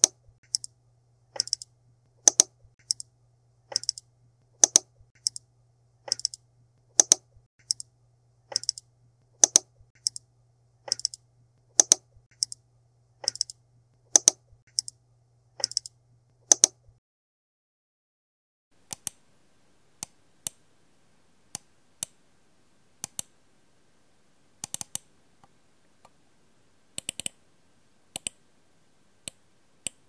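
Computer mouse buttons clicking, each click a sharp snap, often a quick double, repeated at a little over one a second. The clicks stop for a couple of seconds, then resume more slowly, with a quick run of clicks near the end.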